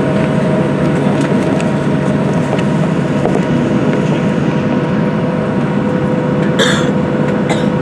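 Steady cabin drone of a Boeing 737-700 holding with its CFM56 engines at idle, with a steady mid-pitched hum running through it. Two brief rustles come near the end.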